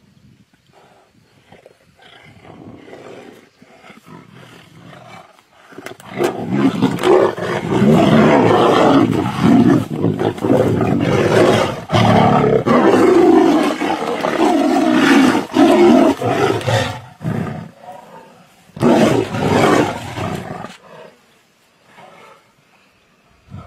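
Tigers roaring as they wrestle, in a long loud bout starting about six seconds in, then a shorter burst near the end.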